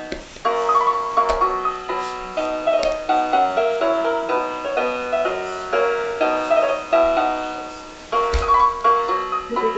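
A battery-operated musical baby toy playing an electronic, piano-like tune of short stepping notes, with a few knocks from the toy being handled.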